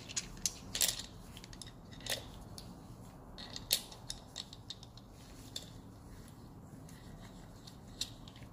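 Scattered metal clicks and clinks of a tube-flaring tool being put together, a steel die lifted from its plastic kit case and fitted into the tool. The clicks come in a quick cluster in the first second, then singly every second or two.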